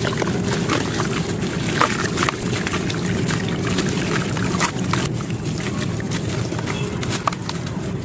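Sand-cement chunks being crushed and crumbled: a dense, steady crunching with many small sharp cracks.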